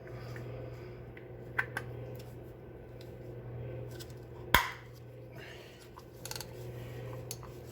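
A few sparse metal clicks and clinks as a cap-type oil filter wrench and ratchet are handled and fitted to a new oil filter, the sharpest about halfway through, over a steady low hum.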